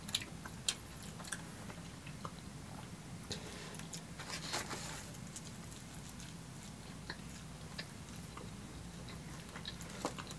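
Close-miked eating: pizza being bitten and chewed, with small crunchy clicks from the crust throughout and a longer crunch about four and a half seconds in, over a faint steady low hum.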